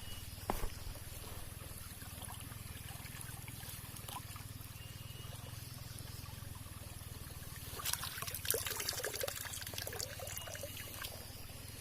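Water trickling and splashing, with a busier spell of splashes and small clicks starting about eight seconds in.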